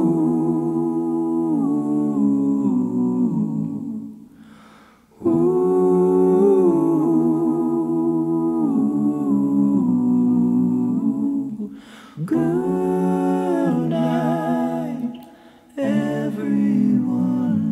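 Wordless vocal humming of a slow melody, with no instruments heard, in phrases a few seconds long separated by short breaks.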